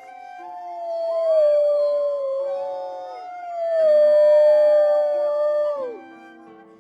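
Wolves howling: long, slightly falling howls overlapping one another, one ending about three seconds in and another dropping off sharply near six seconds, over soft background music.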